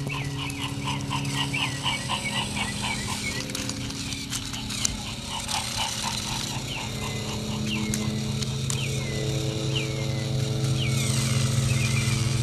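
Small electric motor of a battery-powered remote-control toy train running steadily, a hum that grows louder near the end. Over it come rapid chirping calls for the first few seconds, then a handful of separate falling chirps.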